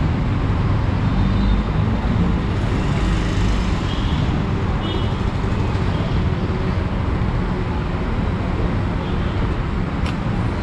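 Steady low rumble of motor vehicles and traffic at a petrol station while a motorcycle is fuelled, with a single short click near the end.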